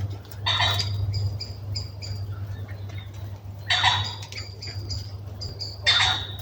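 Small birds calling as they settle into a winter roost in a hawthorn tree: trains of short, high call notes at about three a second, broken three times by a louder, harsh burst. A steady low hum runs underneath.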